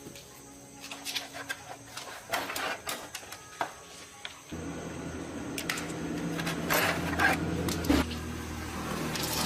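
Scattered clicks and knocks of tools and parts being handled. About halfway through, a motor starts and runs with a steady hum while the knocking goes on.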